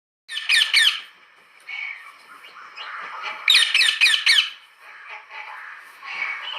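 A parrot squawking. Two loud, harsh screeches come in quick succession near the start, then a quick run of loud screeches about three and a half seconds in, with softer chattering calls between them.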